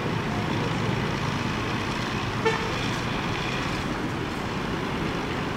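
Steady rumble of a coach's diesel engine and traffic moving through a bus terminal, with one short horn toot about two and a half seconds in.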